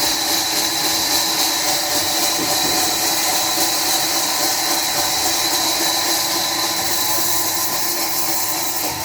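Sawmill saw machinery running steadily: a constant high hiss over a steady mechanical hum, with no break.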